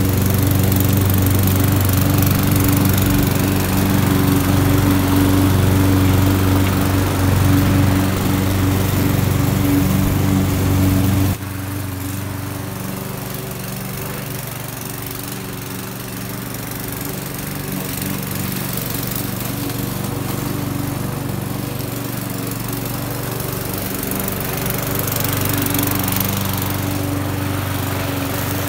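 Petrol walk-behind rotary lawn mower running steadily as it cuts grass, a close, loud engine hum. About eleven seconds in, it suddenly drops to a quieter, more distant hum that keeps going steadily.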